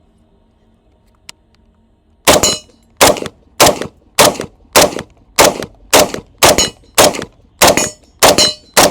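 IWI Tavor 7 rifle in 7.62 NATO firing a rapid string of about a dozen evenly spaced shots, roughly two a second, starting a couple of seconds in.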